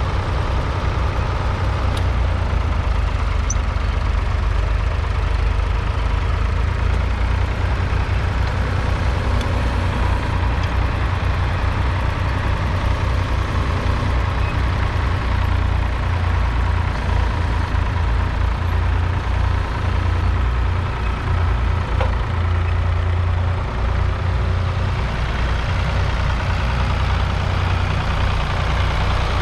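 Ford Industrial 3000's 2.9-litre three-cylinder diesel engine running steadily under load while the tractor pulls a two-furrow mounted plough through the soil.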